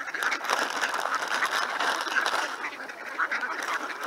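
A flock of ducks quacking, many calls overlapping into a continuous chatter.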